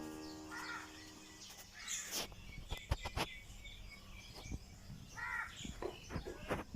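A few short bird calls spaced a couple of seconds apart, with several sharp clicks or knocks between them, as music dies away at the very start.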